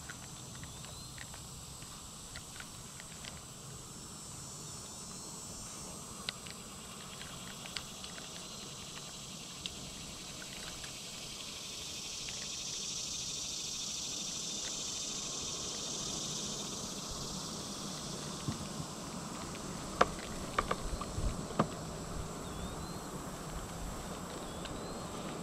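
Outdoor insect chorus, a steady high-pitched buzzing and chirring that swells louder for a few seconds about midway. Scattered small clicks, with a few sharper knocks near the end.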